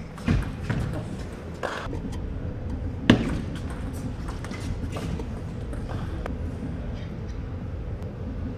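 Table tennis rally: the ball clicks off rackets and table, ending with a loud hit about three seconds in. Then steady hall background with faint small taps.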